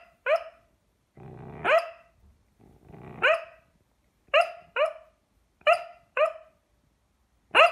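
Doberman pinscher puppy barking in its sleep while dreaming: eight short barks, some in quick pairs, two of them led in by a brief low growl.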